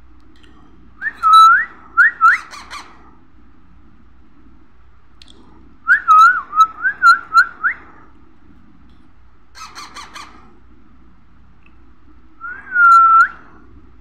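Parakeet chick squawking in bouts of short, rising harsh calls, typical begging calls of a chick being spoon-fed. There are two quick bouts early and midway, a fainter raspy burst later, and one longer call with an upward flick at the end near the close.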